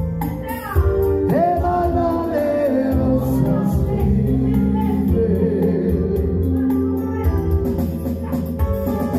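Live band music: a man sings a sliding, held melody into a handheld microphone over electronic keyboard accompaniment with sustained bass notes and a ticking beat.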